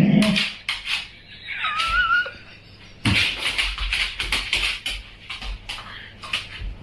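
Quick light clicking and tapping, a dog's claws on a hard floor, with a thump at the start and a brief wavering high squeak about two seconds in.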